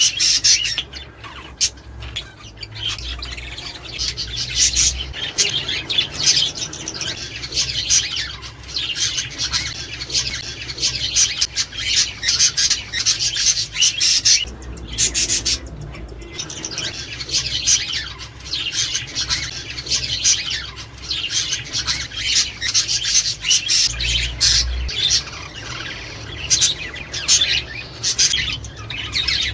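A flock of budgerigars chattering, with many overlapping high chirps and squawks that keep up without a break.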